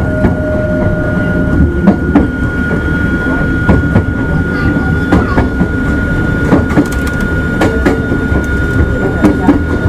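Hakone Tozan Railway Moha 1 electric railcar (cardan-drive conversion) running, heard from inside the car: a steady low rumble with irregular clicks and knocks from the wheels and track, and a thin steady high whine.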